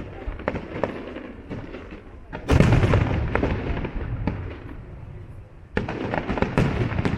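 Aerial fireworks display: scattered sharp bangs and crackles, then a loud volley of shell bursts about two and a half seconds in with a rumble that fades over a couple of seconds, and another cluster of bangs near the end.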